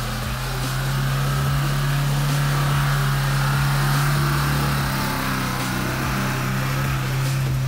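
Mahindra Thar's engine running at steady high revs, a constant hum, as the SUV drives through loose sand.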